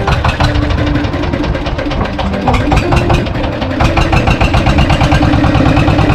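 Inboard engine of a small wooden fishing boat, just started and running with a steady, rapid pulsing beat.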